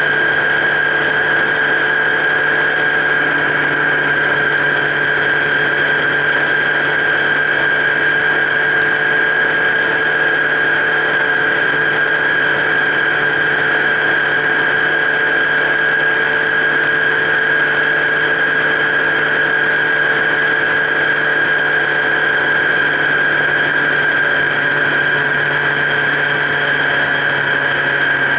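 Vehicle engine running at a steady speed close to the microphone, with a steady high whine over it and no change in pitch.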